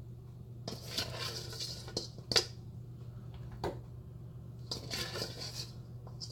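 Kitchen utensils scraping and clinking against a bowl and plate as sauced chicken wings are moved onto a plate: two scraping stretches of about a second each, with a few sharp clinks, the loudest about two and a half seconds in. A steady low hum runs underneath.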